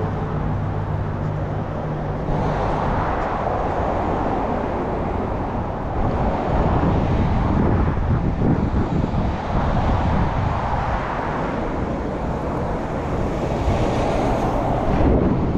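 Road traffic on a busy street: a steady rush of cars and tyres passing, with a low engine hum that fades out about two seconds in.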